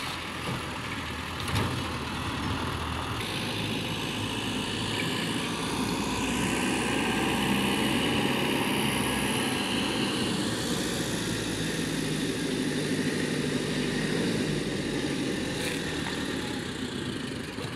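Steady engine and vehicle noise that swells gently through the middle and eases off again.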